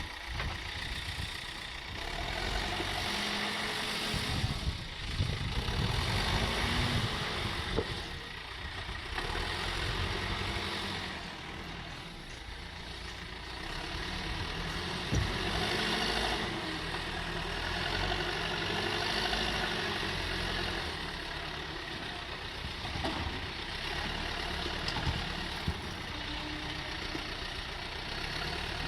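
Diesel engine of a JCB backhoe loader running under work, its note rising and falling every few seconds, with a few short sharp knocks.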